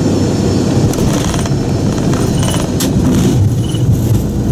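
Cockpit noise of an Avro RJ100 at touchdown on the runway: a loud, steady low roar of airflow and its four turbofan engines, with a few brief clicks about a second in and near three seconds in.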